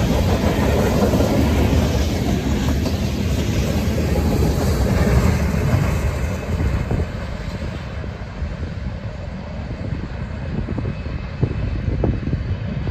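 Freight train's covered hopper cars rolling past at speed on the rails; the noise drops off about six seconds in as the last car passes and the train recedes, leaving a lower rumble.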